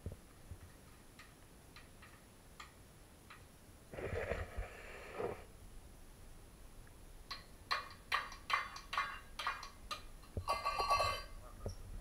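Small metal bowl clinking and clattering against a tile floor as a baby handles and bangs it: a few faint taps, then a quick run of sharp metallic taps about seven seconds in, ending in a louder ringing clatter near the end.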